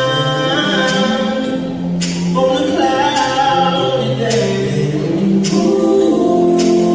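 R&B vocal group music: several male voices singing held notes in close harmony, a cappella style with little or no instrumental backing.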